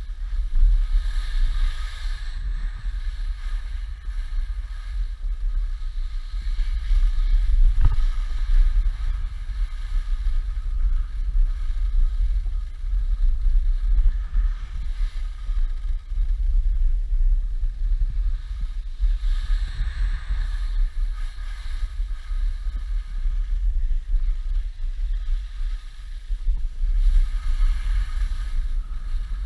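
Wind buffeting the microphone with a steady low rumble while skiing, and a brighter hiss of skis sliding on snow that swells three times.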